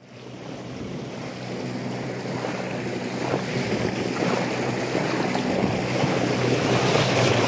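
A boat's motor hums steadily while water rushes along the hull and wind buffets the microphone. The sound swells up over the first couple of seconds.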